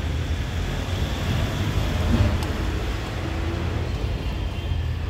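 Steady rumble of road traffic going by, with one faint click about two and a half seconds in.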